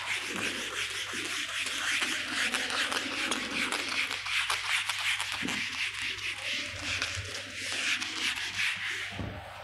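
Steady run of quick scratching and rubbing strokes against a writing surface, going on for the whole stretch.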